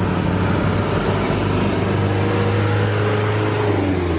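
Motor vehicle engine running close by on the road, a steady low hum whose pitch drops slightly near the end, over general traffic noise.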